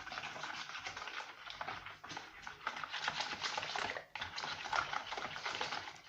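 Liquid cake batter of eggs, sugar, oil, yogurt and milk being beaten by hand in a bowl: a continuous run of rapid clicking and slapping strokes, with a short break about four seconds in.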